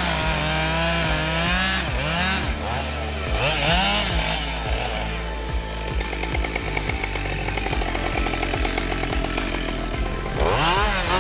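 Husqvarna chainsaw bucking a log, the engine revving up and dropping back several times as it goes into and out of the cut, with a steadier stretch of cutting through the middle.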